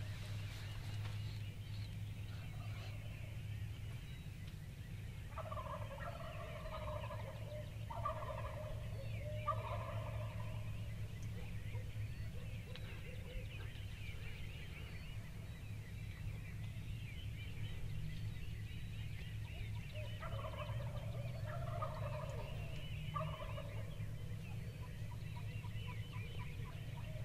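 Wild turkey gobblers, Rio Grande turkeys, gobbling in two bouts, one about six seconds in and another about twenty seconds in. Each bout is a run of several gobbles in quick succession. A steady low hum runs underneath.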